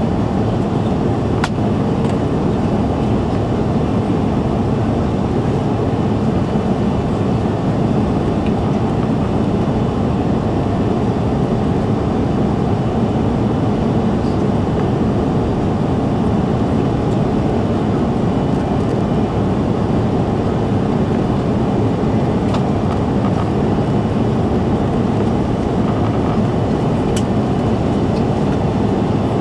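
Steady, even cabin noise inside an Airbus A330-300 climbing after takeoff: the Rolls-Royce Trent 700 engines and the rush of air past the fuselage, heard from a window seat over the wing.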